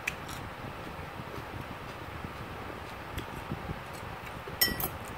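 Metal fork clicking and scraping on a dinner plate: a few light clicks, with the loudest cluster near the end, over a steady background hiss.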